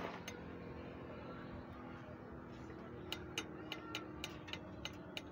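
Light, sharp clicks, about three a second, start about three seconds in over a faint steady hum.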